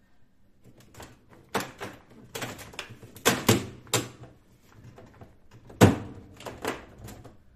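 Plastic parts inside a refrigerator's freezer compartment being handled and pulled: a string of knocks, clatters and scrapes, the loudest about six seconds in.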